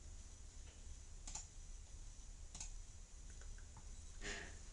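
Faint computer mouse clicks, three of them spaced a second or more apart, over a steady low hum.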